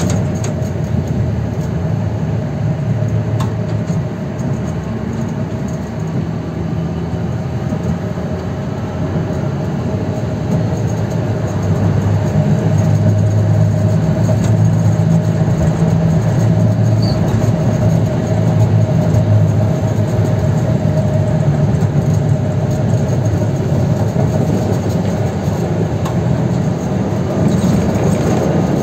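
Konstal 105Na tram running along its track: a continuous rumble of wheels and running gear with a steady tone above it, getting louder about twelve seconds in.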